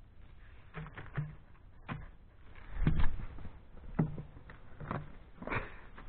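Footsteps close to the microphone: a run of knocks and thuds roughly once a second, the loudest about three seconds in.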